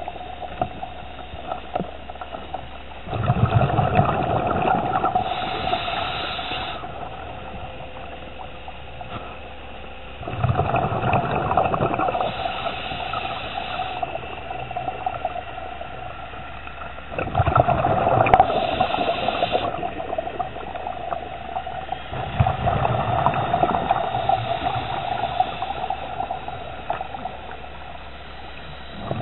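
A scuba diver breathing through a regulator underwater: four long bursts of exhaled bubbles, one every six or seven seconds, with quieter stretches between breaths.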